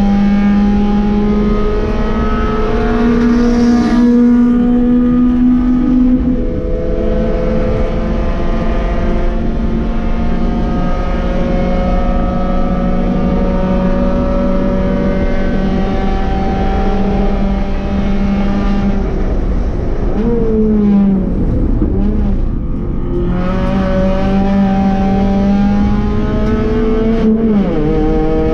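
Onboard sound of a B-Spec subcompact race car's four-cylinder engine pulling hard at high revs, its pitch climbing slowly between gear changes. About six seconds in the pitch steps down at an upshift. Around twenty seconds in the engine note wavers and falls through braking and downshifts before picking up again, with another brief dip near the end.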